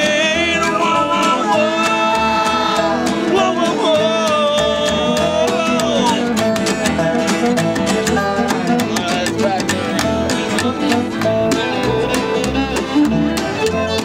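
Acoustic bluegrass band playing an instrumental break: strummed acoustic guitar and upright bass under a wavering, held lead melody for about the first six seconds, then mainly steady guitar strumming, with the fiddle coming forward near the end.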